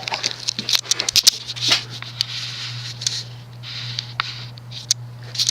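A vintage Hunter Comfort Breeze ceiling fan's stack motor running on low speed with a steady audible hum. Irregular scratchy clicks and rustles sound over the hum throughout.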